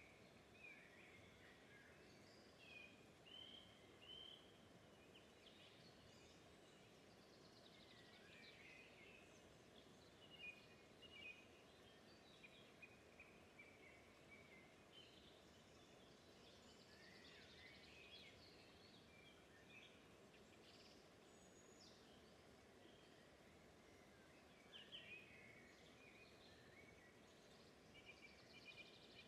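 Faint birds chirping and calling in short, scattered phrases throughout, over a low steady hiss of outdoor ambience.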